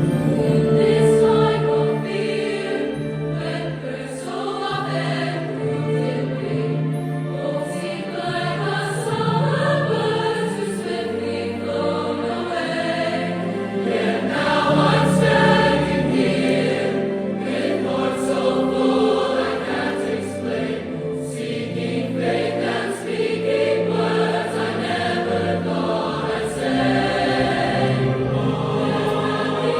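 A choir singing in several parts, with long held notes that change in steps.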